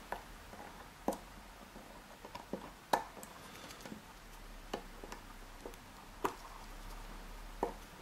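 Faint, irregular metallic clicks and taps, about eight, as needle-nose pliers grip and tug at a lock pick jammed in the keyway of an Abus dimple lock cylinder.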